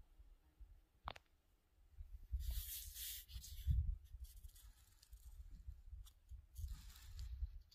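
Faint handling noise from a phone held against a spotting-scope eyepiece: a sharp click about a second in, then scattered scuffs and rustles with a low rumble.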